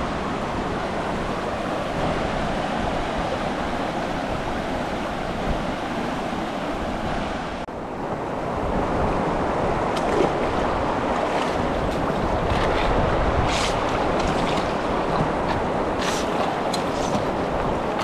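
Steady rush of river water, with scattered sharp clicks and knocks in the second half.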